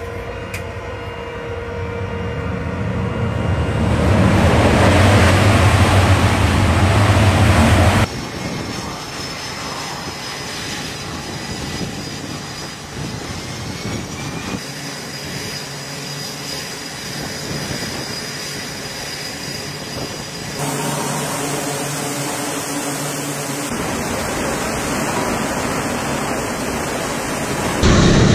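Jet aircraft engine noise on an aircraft carrier's flight deck. It builds to a loud peak a few seconds in and cuts off abruptly. Then comes quieter, steadier engine noise with a faint high whine, shifting at several cuts and loud again at the very end.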